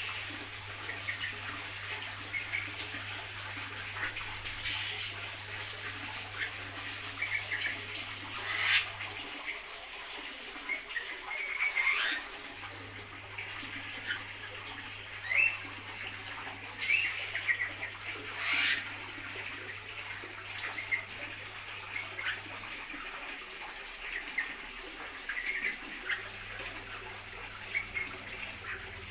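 Birds in an aviary chirping and calling: many short chirps with a few sharp, sweeping calls, over a steady hiss. A low hum stops and starts again twice.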